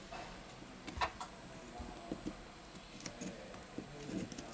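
Scattered small clicks and ticks of a smartphone display module being handled and pried at with a metal pry tool as its frame is separated from the screen; the sharpest click comes about a second in.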